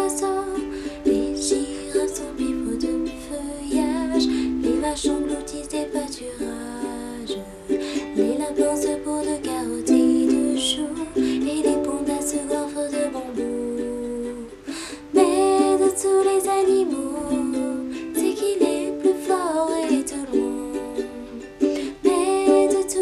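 Ukulele strummed in a steady rhythm, accompanying a woman singing a French song.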